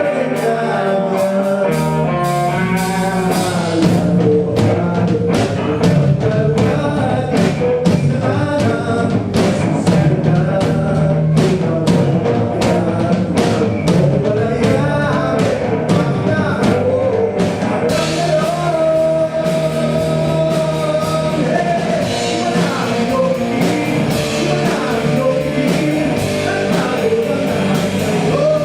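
Rock band playing live through a PA: drum kit, guitar and a singing voice, loud and continuous.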